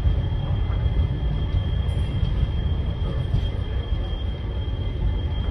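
A freight train of loaded flat wagons rolling steadily past, a continuous rumble of wheels on the rails with a thin steady high whine above it.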